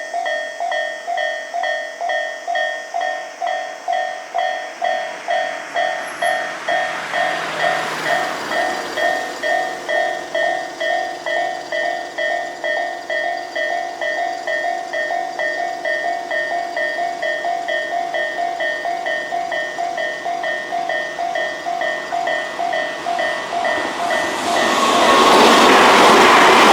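Japanese level-crossing warning bell with an odd-sounding tone, ringing in a steady rapid rhythm of about two dings a second. About 24 seconds in, a train passes over the crossing and its loud rush of wheels on rails drowns out the bell.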